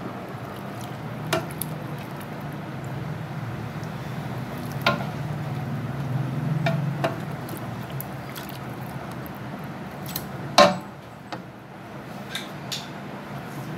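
A serving spoon knocking and scraping against a large metal cooking pot as chicken korma is spread over a layer of rice: a handful of sharp, irregular clacks, the loudest about ten and a half seconds in, over a steady low hum.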